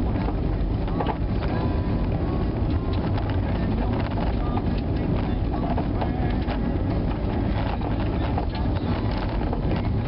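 Steady road and engine noise inside a car's cabin, tyres running on a snow-packed highway, with many small clicks and ticks scattered through it.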